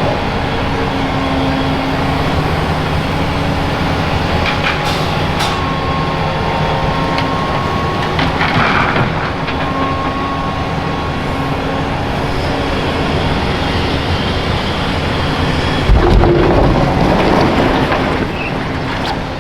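Volvo EC480EHR excavator's diesel engine running steadily under load while crushed concrete is loaded into a dump truck. There are rough crashes of rubble a few times, the heaviest a low thump with clatter about sixteen seconds in.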